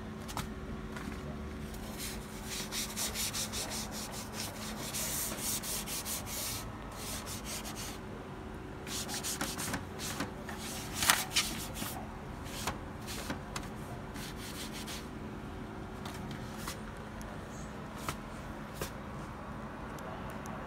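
Dry rubbing and scraping at a laser printer during start-up. A fast, even run of strokes lasts several seconds, then come irregular scrapes and clicks with one sharp click about eleven seconds in, over a steady low hum.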